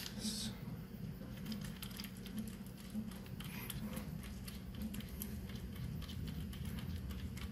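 Irregular small clicks and light taps of hands handling and fitting parts on a 3D-printed plastic microscope body, over a steady low hum.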